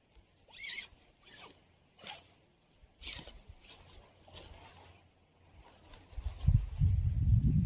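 Nylon tent fabric rustling and crinkling in short bursts as it is unfolded and handled. From about six seconds in, a loud, gusty low rumble of wind buffets the microphone.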